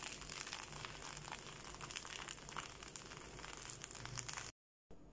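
Chinese rice vermicelli being stirred with a wooden spoon in a frying pan while it sautés with chermoula: a dense crackle and rustle of frying noodles with small scraping clicks. It cuts off abruptly near the end.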